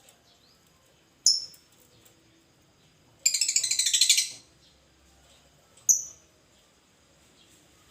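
Lovebird calls: two short, shrill chirps about four seconds apart, with a rapid chattering burst lasting about a second between them.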